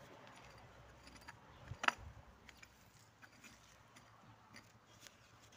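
Small garden hoe scraping and chopping through soil to cut out grass: faint, scattered scrapes and ticks, with one sharper knock about two seconds in.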